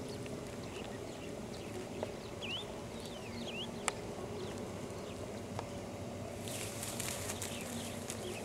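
Scattered short bird chirps over a steady low background rumble, with a sharp click about four seconds in and a brief rush of high hiss near the end.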